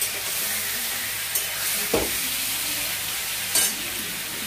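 Chicken pieces sizzling steadily as they fry in oil in a steel kadai. A metal spatula scrapes and knocks against the pan a few times.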